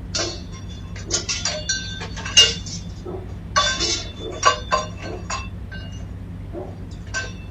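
A scattered series of short clinks and knocks, some ringing briefly, the sharpest about two and a half seconds in and again about four and a half seconds in, over a steady low hum.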